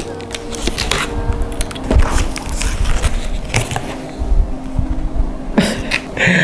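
Cardboard box and its padding being handled and pulled open: irregular scrapes, crackles and clicks, with background music underneath.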